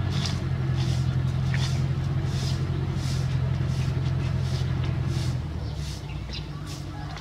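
Stiff twig broom sweeping sandy ground in repeated short swishes, over a steady low engine-like hum that weakens about five and a half seconds in.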